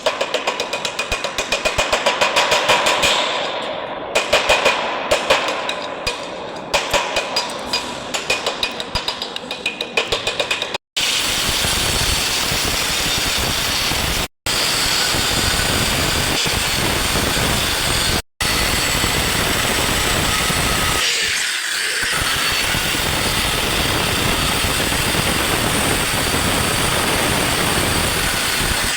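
Electric arc welding on steel C-channel: a rapid, crackling sputter of the arc that swells and eases in quick pulses, then, after abrupt cuts, a steady hissing buzz.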